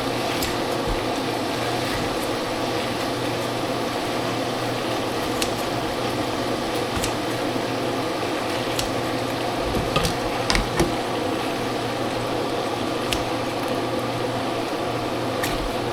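Food sizzling steadily in a frying pan, with a few light clicks and taps of a utensil now and then.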